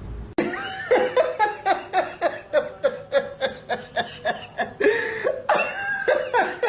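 Someone laughing hard in quick, regular bursts, about three or four a second, starting suddenly about half a second in.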